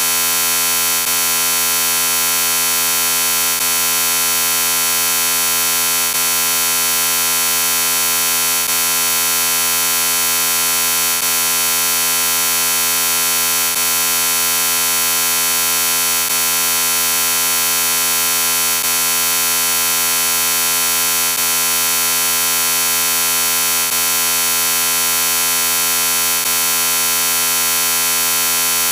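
Steady, loud electronic buzzing drone of many stacked tones: a sound effect run through 'chorded robot' and 'G major' pitch filters. It has a slight dip in loudness about every two and a half seconds.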